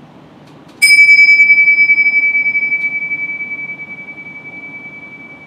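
Pair of tingsha cymbals struck together once, about a second in, leaving one clear high ring that fades slowly over several seconds.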